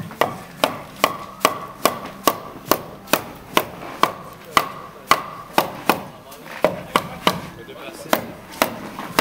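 A hammer striking wood timber framing in a steady rhythm, about two blows a second.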